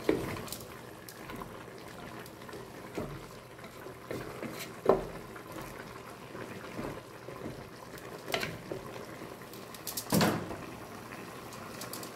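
Chicken pieces and green papaya simmering and bubbling in their own juices in an aluminium pot, stirred with a wooden spoon that knocks and scrapes against the pot a few times, loudest about five seconds in and again about ten seconds in.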